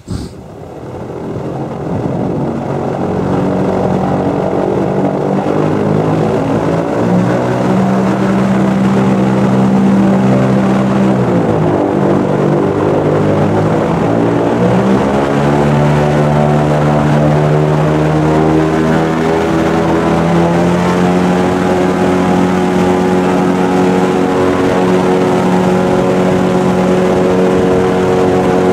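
Airboat's engine and air propeller running very loud from on board, building up over the first few seconds. About halfway through the pitch drops briefly and climbs again, then it holds steady at speed.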